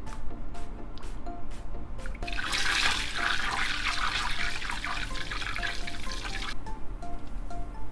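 Melted butter sizzling and bubbling hard in a saucepan as its water boils off, for about four seconds in the middle, starting and stopping sharply. A gentle music melody plays throughout.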